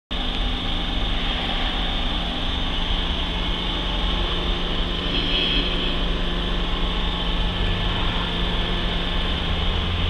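HCP 72 hose crimping machine's hydraulic oil pump and motor running, a steady mechanical hum with a constant low tone.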